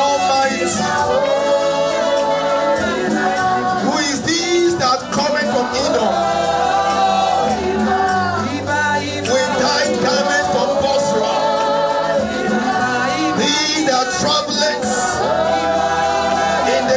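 Gospel worship song with a choir singing sustained phrases over a steady bass accompaniment.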